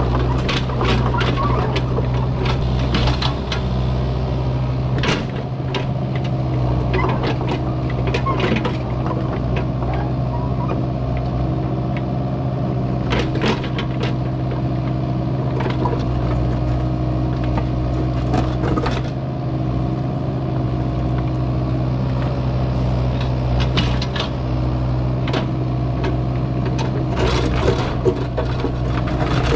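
Kubota U55-4 mini excavator's diesel engine running steadily under load as it digs a trench. Sharp knocks and clanks come every few seconds, with a cluster near the end, from the bucket striking and scraping the ground.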